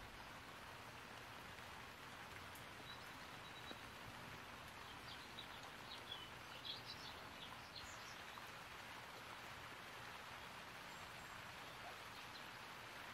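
Faint outdoor ambience: a steady soft hiss with a few faint, short bird chirps a little past the middle.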